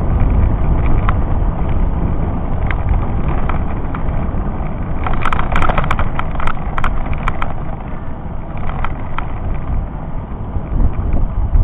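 Low rumble of wind and road noise on a camera riding along on a bicycle over rough asphalt, with scattered clicks and rattles that bunch up about five to seven seconds in.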